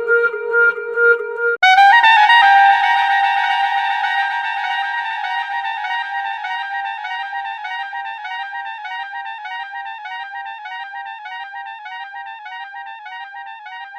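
A clarinet plays a lower note with a fast flutter, then about a second and a half in jumps up to a rapid trill between two high notes, which slowly fades over the rest.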